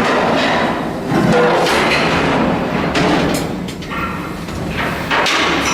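Shipyard steelwork: hammer blows and clanks on steel, a few of them ringing briefly, over steady loud workshop noise.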